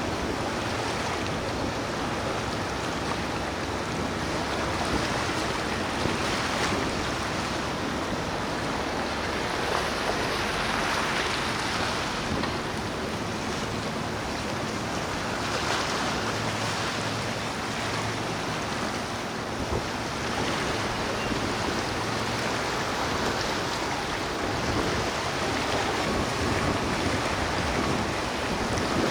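Steady rushing noise of wind and waves along the water, with wind on the microphone.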